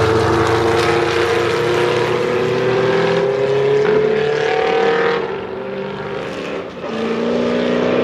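Historic Can-Am race car engine, its note climbing steadily under acceleration for about five seconds, then fading away. A second car's engine comes in near the end.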